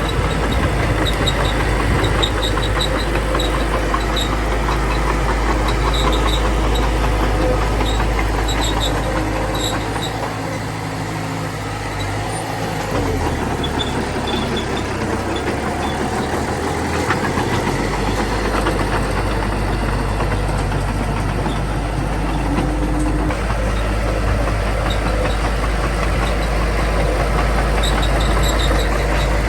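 Small bulldozer's diesel engine running steadily as the machine works. Its low note drops for several seconds near the middle, then picks back up.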